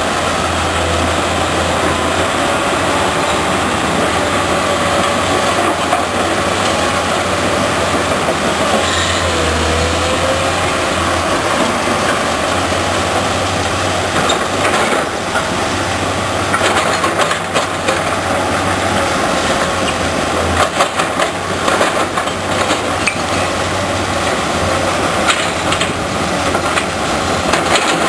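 Nordberg mobile crusher and a Kobelco SK210 excavator running together while crushing demolition rubble: a steady, dense machinery din of diesel engines and the crusher. From about halfway through, many sharp knocks and clatters of rock and concrete pieces join it.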